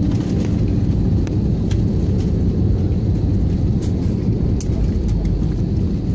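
Cabin noise of an Airbus A320-family airliner in its landing rollout: a steady, heavy low rumble of engines and tyres on the runway, with a few light rattles.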